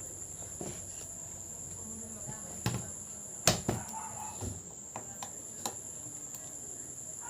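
A few sharp plastic clicks and taps, one clearly louder in the middle, from work on the laptop's bottom case, over a steady high chirring of crickets.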